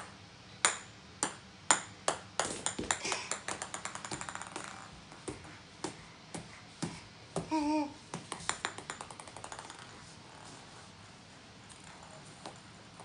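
Small plastic ping-pong-type balls bouncing on a hardwood floor: about five sharp single clicks in the first two seconds, then twice a rapid run of bounces that come faster and faster as a ball settles. A short wavering vocal sound about midway.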